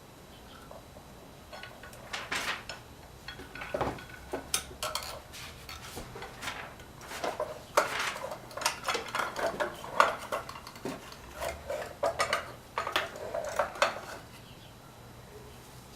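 Metal hand tools and parts clinking and clattering against each other in a long run of irregular light knocks and clinks, quieter again near the end.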